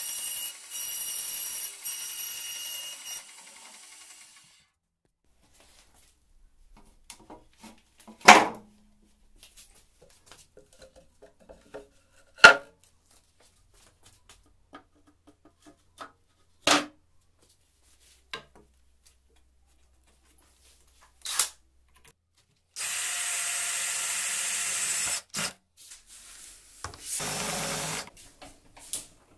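Band saw running through OSB board with a high whine, dying away after about four seconds. Then four sharp knocks a few seconds apart as OSB panels are set into a steel shelf frame, and near the end a cordless drill driving screws in two bursts, the first about two and a half seconds long.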